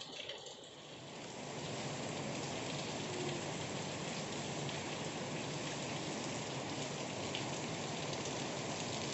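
Heavy rain falling steadily, a dense patter of drops on surfaces. It swells about a second in and then holds even.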